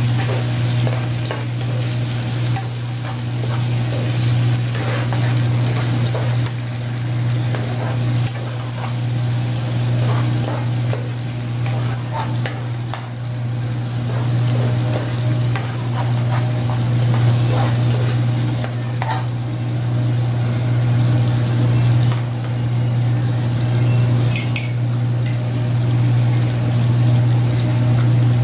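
A metal spoon stirring and scraping in a wok of sardines simmering in tomato sauce, with scattered clicks of the spoon against the pan over the sauce's steady sizzle. A steady low hum runs under it all.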